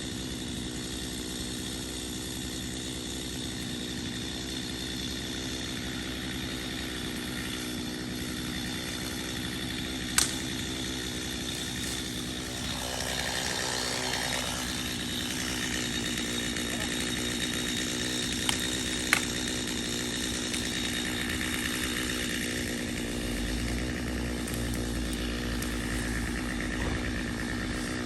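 Chainsaw engine running steadily, with a few sharp knocks, one about ten seconds in and two close together near nineteen seconds.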